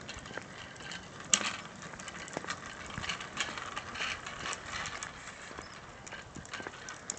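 Footsteps of a person walking on a concrete sidewalk: irregular clicks and scuffs with a light hiss, and one sharp, louder click about a second and a half in.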